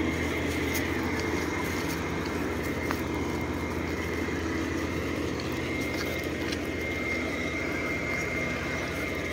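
Generator engine for the farm's water pump running steadily, a low, even hum with a thin high tone over it. It runs around the clock without stopping.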